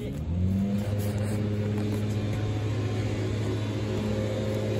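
A machine motor starts up, rising in pitch over about half a second, then runs steadily with a low hum.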